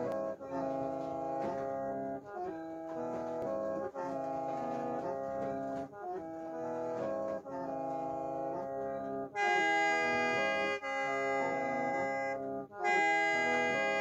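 Mro bamboo mouth organ (plung) playing a repeating melody in held chords, several reedy notes sounding at once, with short breaks between phrases. A little past halfway it grows louder and brighter, dips briefly, then comes back near the end.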